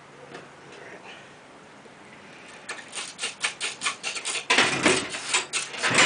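Hand drill friction fire: a Paulownia spindle twirled back and forth between the palms in the notch of a Paulownia hearth board, wood rubbing on wood. The strokes start about two and a half seconds in, about three a second, then come closer together and louder. These are the warm-up spins before drilling for an ember.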